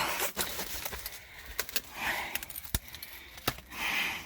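Scattered sharp clicks and knocks with rustling and scuffing: a person shifting about and handling gear in a cramped air raid shelter.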